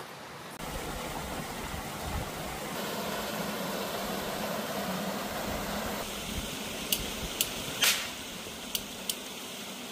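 Steady rush of a flowing hot-spring stream, with a few short sharp clicks a little past the middle.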